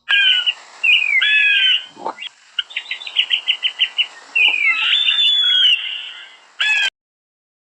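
Birds singing: short whistled phrases that slide up and down, and a quick run of clipped notes, about eight a second, in the middle. The sound cuts off suddenly near the end.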